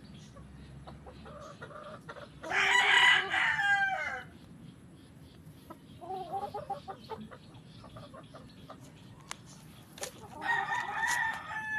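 Gamefowl roosters crowing: a loud crow about two and a half seconds in, a fainter one around six seconds, and another near the end.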